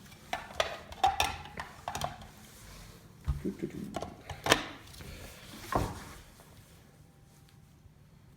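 Packaging being pulled apart and handled while unboxing a small appliance: a string of knocks, scrapes and rustles, the sharpest about four and a half seconds in, dying away after about six seconds.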